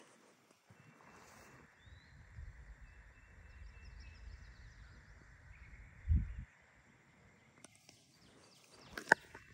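Faint rural outdoor ambience: a steady high hiss, low rumbling on the microphone and a few faint bird chirps. A low thump comes about six seconds in and a sharp click near the end.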